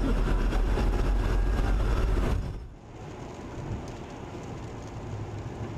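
Car cabin noise from a dashcam: steady engine and road rumble, which drops sharply about two and a half seconds in to a quieter, steady low hum.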